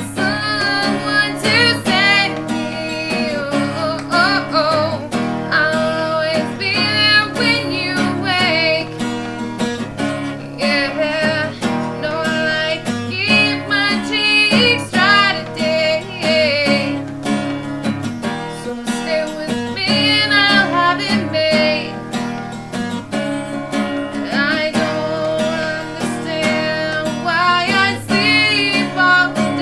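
A solo singer accompanying themselves on a strummed acoustic guitar, singing a wavering melody with vibrato throughout.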